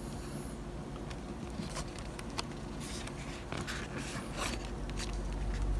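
Light rustling and scattered clicks of art cards being handled and shuffled, over a low steady hum.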